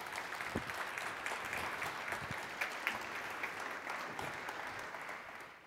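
Audience applauding, a dense steady mass of hand claps that fades out quickly near the end.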